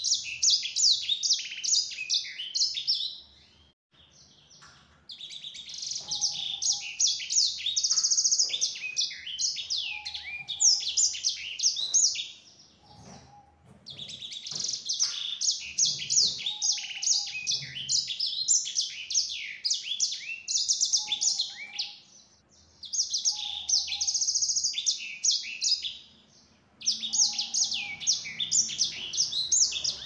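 Caged sanger finch singing long phrases of rapid high twittering, chirps and trills, broken by short pauses of about one to two seconds.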